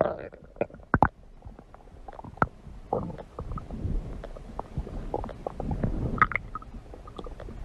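A person's stomach growling: low gurgling rumbles come and go, with many small irregular pops and squeaks between them.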